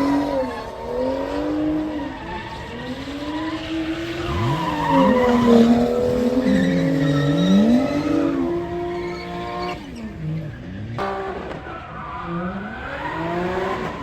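Drift cars' engines revving hard up and down, more than one at once, with tyres squealing as they slide.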